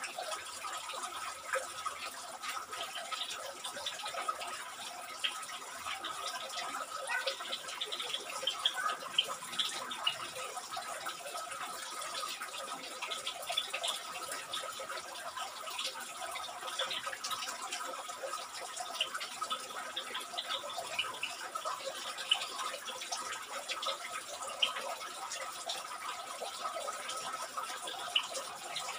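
Steady trickling of running water, with many short high chirps dotted through it.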